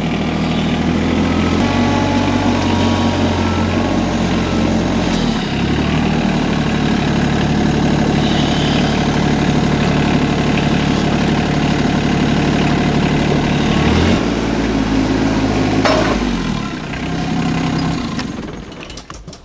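Small tractor's engine running, its speed stepping up and down several times, then dying away near the end.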